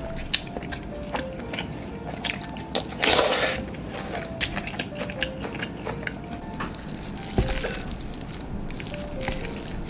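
Close-up eating sounds of someone chewing green onion kimchi: wet chewing and many small clicks, with a louder noisy burst about three seconds in. Near the end comes the squish of chopsticks lifting and loosening sticky jjapaghetti noodles. Soft background music with a simple melody plays underneath.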